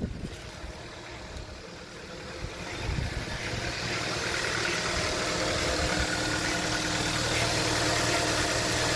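Hyundai G4FD 1.6 GDI four-cylinder engine idling, getting louder about three seconds in and then running steadily. Its running sound is 'so-so', with the high-pressure fuel pump running noisily; the engine is one diagnosed with piston knock and oil burning.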